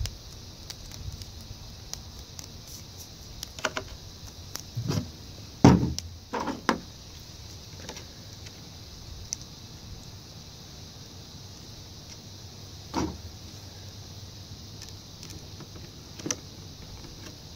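Hand-work noises from a plastic ice-chest hinge repair: scattered knocks, taps and rustles as PVC tape is peeled and pressed on and the plastic hinge and screwdriver are handled, the loudest cluster about five to seven seconds in. A steady high hiss runs underneath.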